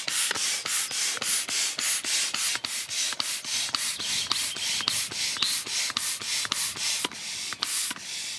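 Hand air pump inflating an inflatable kayak: quick, even hissing strokes of pumped air, about three or four a second, each with a light click.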